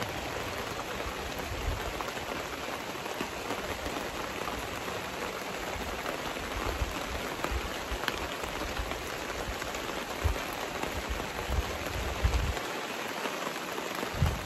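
Steady rain falling on a canopy tent overhead and the wet ground around it, with occasional low rumbles.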